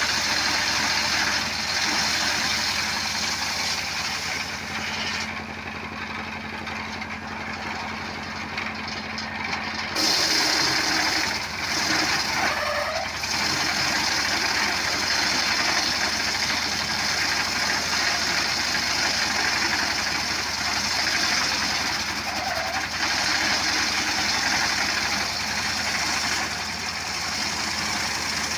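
A motorcycle engine running steadily, going a little quieter for a few seconds about five seconds in and then picking up again.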